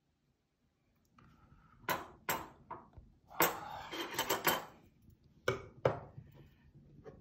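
Metal spoon and chopsticks clinking and knocking against a small metal handled bowl and the tableware: a string of sharp clinks, busiest near the middle.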